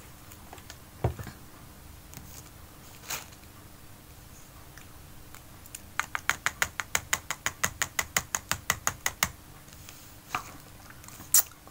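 A knock about a second in as a plastic water bottle is set down on the table, then a quick run of about two dozen sharp, evenly spaced clicks, some eight a second, lasting about three seconds, as clear plastic food packaging is handled.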